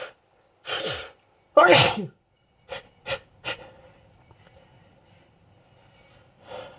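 A person sneezing: a short noisy burst, then a loud sneeze about a second and a half in, followed by three short sharp sounds. It is an allergic sneeze set off by sniffing pollen from flowers.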